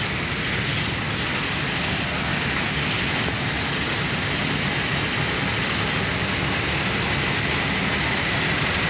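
Diesel locomotive engine running steadily: an even, dense noise with a low hum underneath.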